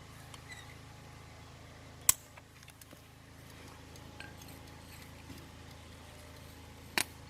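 Two sharp metallic clinks about five seconds apart, the first the louder, over a faint low hum, as the steel tie-down bolt is handled and set into the glue-filled hole in the concrete.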